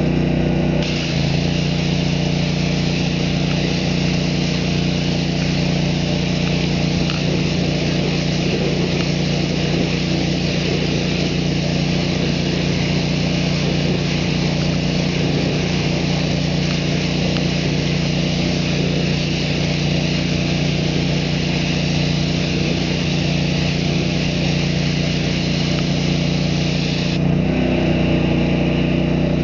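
Pressure washer running steadily, a constant engine drone with a hiss of water spray over it while a truck wheel is rinsed. The sound shifts about a second in and shifts back near the end.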